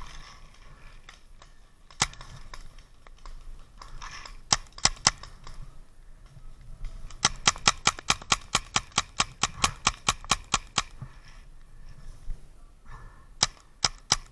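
Shots from paintball markers and airsoft guns in a game. A single shot comes about two seconds in and a pair at four and a half seconds. A rapid string of about eight shots a second follows for some three and a half seconds, and another short burst comes near the end.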